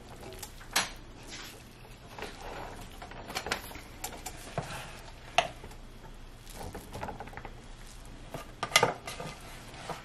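Silicone spatula stirring and scraping fried rice, veggie crumble and broccoli around a nonstick skillet. Irregular knocks of the spatula against the pan are louder than the steady scraping, with a cluster of them near the end.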